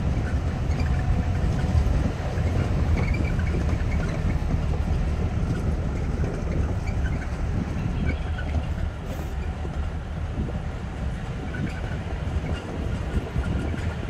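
A vehicle driving slowly over a rough, stony dirt track, with a steady low rumble and an uneven clatter and rattle from the bumps.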